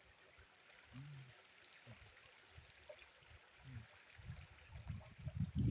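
Flowing stream water rushing steadily. From about four seconds in, low rumbling thuds grow louder.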